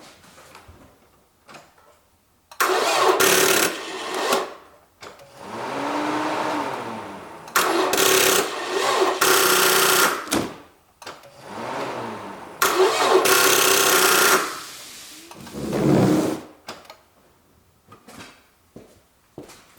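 Toyota Camry's starter cranking the engine in several short attempts, about three or four bursts of a couple of seconds each, with clicking and electric sounds, and the engine never catches. The owner takes this for a weak battery or corroded battery or starter cables.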